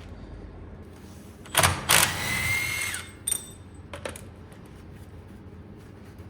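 Metal hand tools clattering as a socket is swapped: a couple of sharp metallic clinks about one and a half seconds in, a short rattle with a brief ringing note, then a lighter click about four seconds in.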